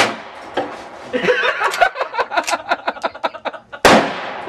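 A sharp crack at the start, then a person laughing in short, rhythmic laughs. About four seconds in comes a single loud shot from a .45 lever-action rifle, its echo trailing off.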